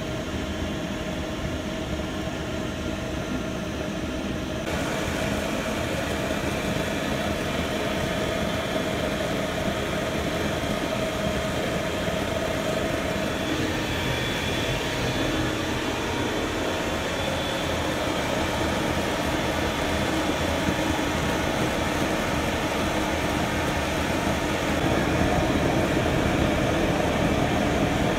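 Propane torch burning steadily into a small homemade forge: a continuous rushing hiss that turns brighter about five seconds in and grows a little louder near the end.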